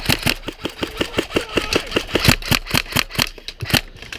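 Airsoft rifle firing rapidly, a fast even train of sharp shots at about seven a second.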